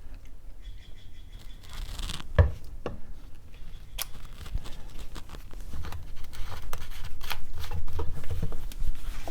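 Hands readying a bottle of tubeless tire sealant at a partly mounted tire: scattered sharp plastic clicks and taps, then busier rustling and scuffing in the second half.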